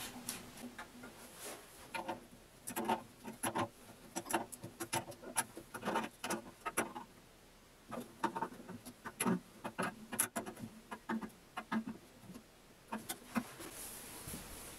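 Light, irregular metallic clicks and taps of plumbing fittings being handled: a braided flexible hose is threaded onto a brass tee on the toilet's supply valve and tightened with a spanner.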